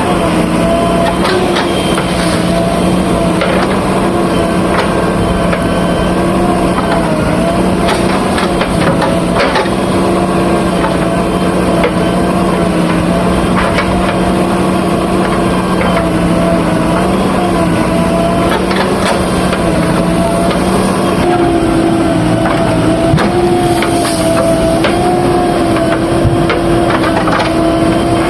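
Diesel engine of a JCB 3DX backhoe loader running steadily under work, with scattered metallic knocks and clanks; the engine note shifts slightly about two-thirds of the way through.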